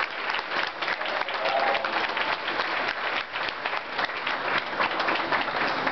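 A roomful of people applauding: steady, dense clapping, with a few voices faintly underneath.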